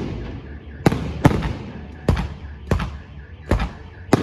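Fireworks display: aerial shells bursting in a rapid, irregular series of about six sharp bangs, each followed by an echoing tail.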